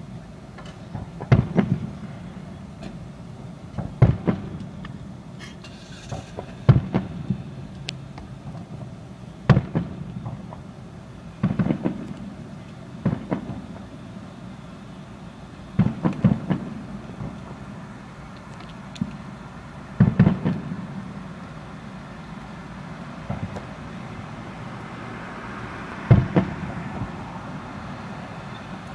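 Distant aerial fireworks shells bursting: about eight deep booms a few seconds apart, each with an echoing tail, and a few smaller pops between them.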